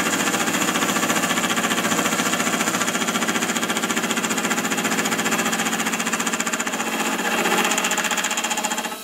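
Milling spindle's gear cutter cutting a tooth in a change-gear blank: a loud, fast rattling chatter over the spindle's hum, growing louder about three-quarters of the way through and then stopping abruptly near the end as the cut finishes.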